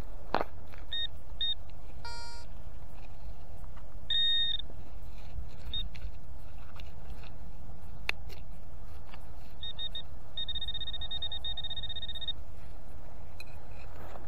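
Metal detector's electronic beeps while a dug target is checked: several short high beeps, one short low buzz about two seconds in, and a fast run of pulsed beeps lasting about two seconds near the end. Two sharp knocks, one right at the start and one around the middle.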